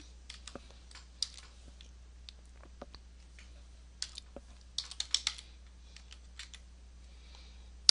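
Typing on a computer keyboard: irregular key clicks, single keystrokes broken by a few short quicker runs.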